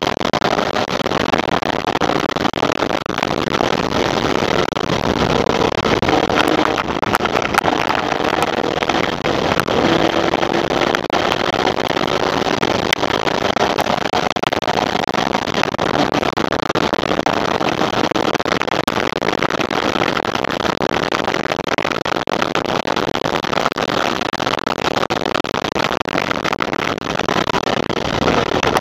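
Formula Vee race car's air-cooled Volkswagen flat-four engine running hard at racing speed, heard onboard under heavy wind rush. The engine pitch climbs steadily, drops at each gear change and climbs again.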